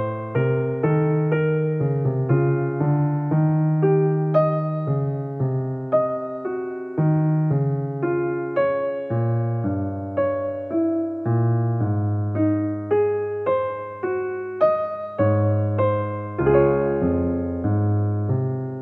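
Background music on piano: notes and chords struck and left to fade over held low bass notes.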